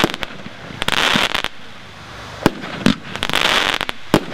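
A 13-shot micro firework cake (Popping Flowers) firing shot after shot: a sharp bang every half-second to second and a half, each followed by the crackling hiss of glittering stars.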